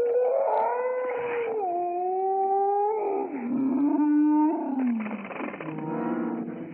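A pet's long vocal yawn: a drawn-out, wavering, howl-like whine that shifts pitch in stages and slides down low near the end.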